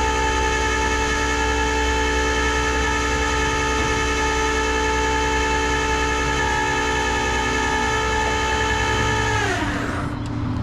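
Steady, high-pitched mechanical whine from the car hauler's powered loading gear, pulling the Chevelle aboard; near the end it winds down, falling in pitch as it stops.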